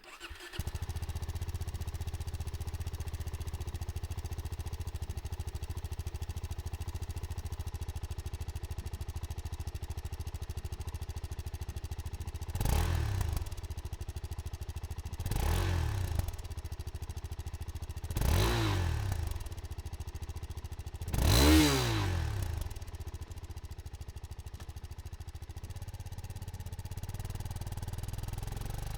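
2025 Suzuki DR-Z4S single-cylinder engine starting up and settling into a steady idle, then blipped four times, each rev rising and falling back, the last one the highest and loudest, before returning to idle.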